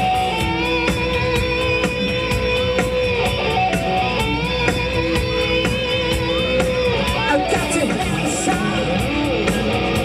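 Live rock band playing: electric guitar with held and bending notes over bass guitar and a drum kit keeping a steady beat.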